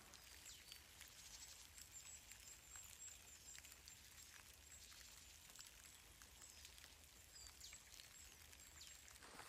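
Near silence: faint outdoor ambience, with a few faint high chirps and ticks.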